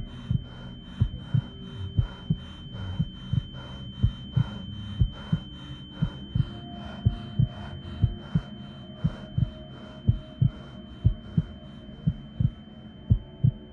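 Tension sound design: a steady heartbeat-like thumping pulse, about two to three beats a second, over a low droning hum. A constant high-pitched ringing tone runs above it. A faint high ticking that comes with the beats fades out about twelve seconds in.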